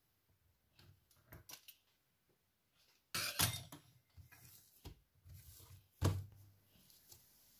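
Bread dough being cut with a metal cutter and handled by hand on a countertop: a few soft knocks and thumps, the loudest about three seconds in and again about six seconds in.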